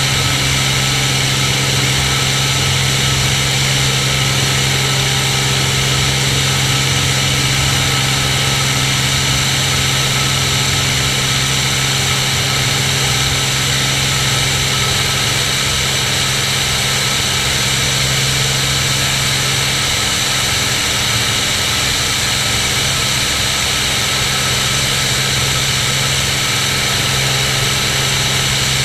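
Cirrus SR22's six-cylinder piston engine and propeller running steadily in flight, a constant low drone with a strong rush of wind over it.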